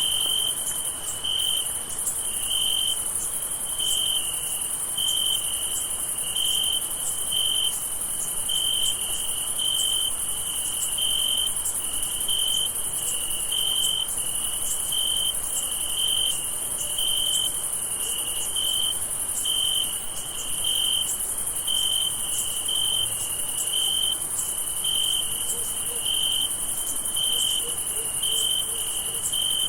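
Crickets chirping at night in a steady chorus. A dense, very high trill runs continuously, with a lower chirp pulsing evenly over it about every two-thirds of a second.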